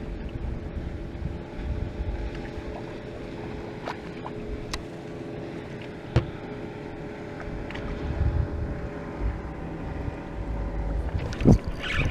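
Wind buffeting the microphone over a steady low hum, with a few light clicks and a louder knock near the end.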